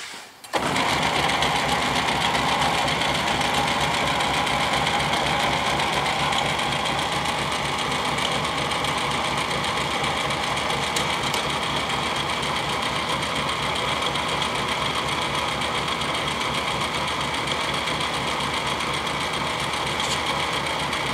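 South Bend 10-inch heavy lathe switched on about half a second in, then running steadily under power with a fast, even beat.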